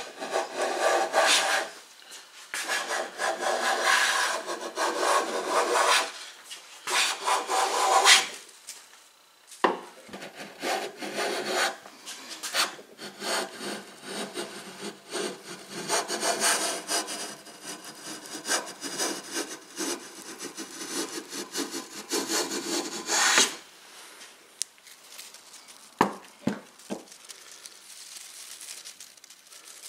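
Taylor Tools No. 5½ jack plane cutting white oak, hand-planing a post face flat in a run of long rasping strokes. The planing stops a few seconds before the end, and a few light clicks follow.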